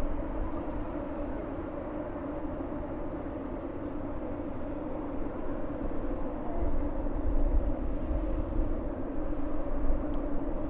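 Steady drone of traffic with a sustained hum. Wind rumbles on the microphone in gusts, stronger in the second half.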